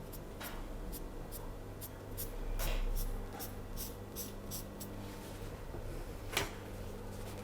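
Pen or pencil drawing on pattern paper: a run of short scratching strokes, about two to three a second, with a louder stroke about six seconds in, over a steady low hum.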